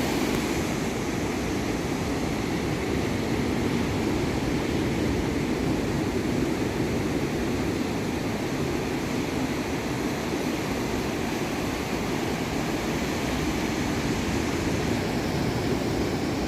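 Ocean waves washing up the beach on an incoming tide: a steady, unbroken rush of surf.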